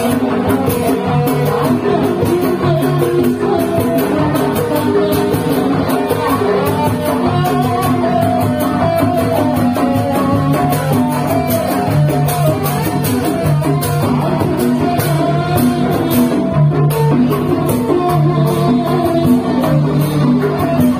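Sundanese kuda renggong procession music played loud through a loudspeaker cart: singing over drums and a melody instrument, with a steady beat.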